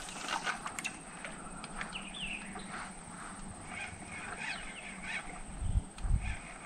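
Birds calling in the background, short harsh calls and chirps. A couple of low thumps near the end.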